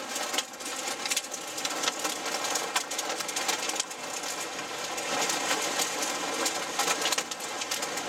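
Hail and heavy rain pelting a vehicle's roof and glass, heard from inside the cab: a steady hiss packed with rapid, irregular clicks and knocks of stones striking the car.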